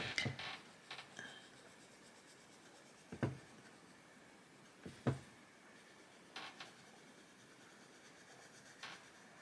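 Black Widow coloured pencil scratching faintly on paper as a small area is shaded in, with a few soft knocks, the loudest about three and five seconds in.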